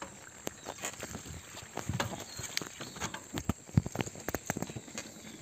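Mountain bike riding over a rutted, muddy and stony dirt track, with irregular clicks and rattles as it goes over the bumps.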